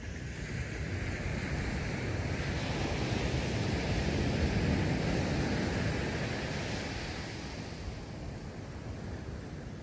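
Ocean surf: a wave breaking and washing up the sand, a rushing hiss that swells to its loudest about halfway through and then fades away.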